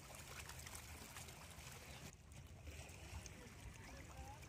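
Faint wash of small sea waves lapping against shore rocks, under a low wind rumble on the microphone. The sound drops out briefly about two seconds in.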